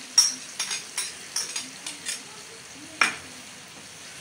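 Wooden spoon stirring whisked yogurt into sizzling tomato-and-spice masala in a steel pan. The spoon scrapes and knocks against the pan about three or four times a second, with one louder knock about three seconds in, and then the masala sizzles steadily.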